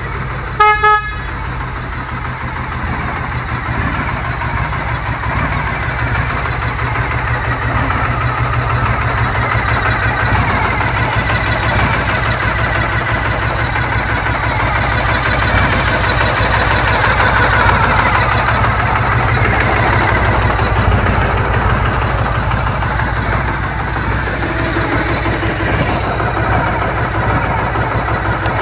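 Horn of a 2003 Victory V92-C motorcycle sounding briefly about half a second in, over the bike's 92-cubic-inch V-twin running steadily. The engine grows a little louder around the middle.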